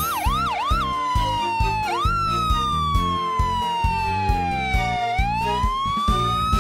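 Ambulance siren sound effect over background music with a steady beat: a few quick up-and-down yelps, then a long wail that falls slowly and rises again near the end.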